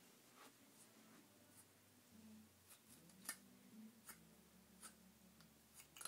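Faint, scattered scratchy strokes of a small comb being drawn through a Beanie Boo plush toy's matted, curly fur to work the curls out, the loudest stroke about three seconds in.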